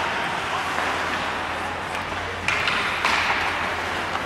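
Game sounds in a large hall: steady crowd noise and voices, with a few light taps and a sharper knock about two and a half seconds in.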